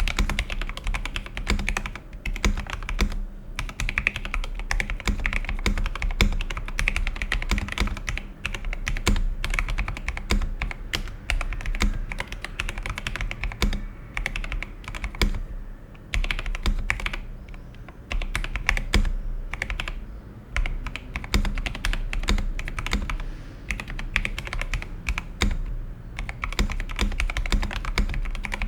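Typing on an Epomaker TH80 mechanical keyboard with Gateron Pro Brown tactile switches: a fast, continuous run of key clacks with a few brief pauses.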